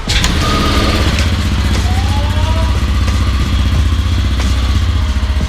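Yamaha Aerox 155 scooter's single-cylinder engine starting suddenly and settling into a steady idle, through a JVT V3 adjustable aftermarket exhaust set to its mid setting.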